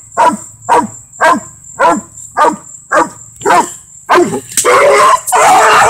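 A four-month-old pup barking treed up at a tree trunk: a steady run of short barks, each dropping in pitch, about two a second. Near the end the barks give way to a denser, rougher burst of sound.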